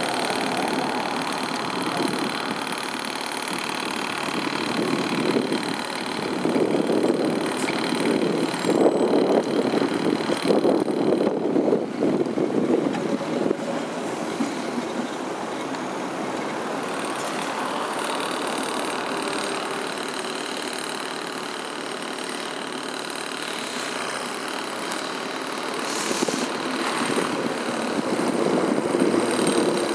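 Tatra T3 trams rolling slowly over a tram switch under repair, their wheels rumbling on the rails. A run of clattering knocks comes as one tram passes close about a third of the way in, and another tram train rumbles by near the end.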